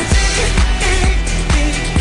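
Korean pop song: a steady, evenly spaced beat with backing instruments and a voice singing over it.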